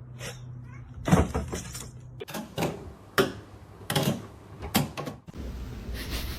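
A series of irregular sharp knocks and clicks, about eight over four seconds, over a low steady hum during the first two seconds.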